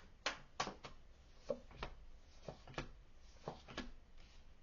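Tarot cards being handled and shuffled: a series of light clicks and taps, mostly in pairs, coming about once a second.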